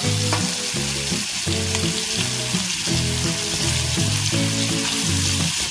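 Beaten eggs sizzling as they hit a hot oiled wok with diced smoked pork shoulder, stirred in with a silicone spatula: a steady, even sizzle throughout.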